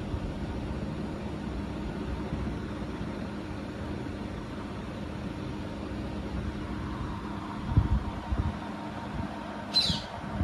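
A steady low mechanical hum, like a fan or air conditioner running, with a few soft bumps about eight seconds in and a brief high squeak near the end.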